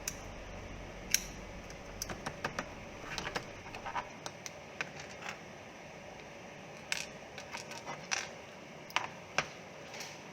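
Irregular light clicks and taps of the opened remote's small plastic and metal parts being handled, a dozen or more scattered unevenly.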